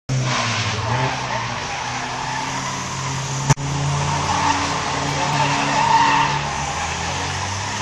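Turbo-diesel Toyota Corolla drifting: the engine runs under throttle while the tyres skid across the tarmac. A single sharp click comes about three and a half seconds in.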